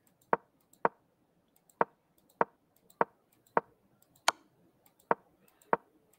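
Nine short, sharp clicks at uneven spacing, about one every half second to second, one for each move stepped forward on an online chess board.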